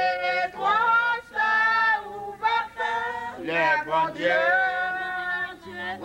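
A small group of voices singing a hymn without instruments, women's voices loudest, holding long notes between short breaths.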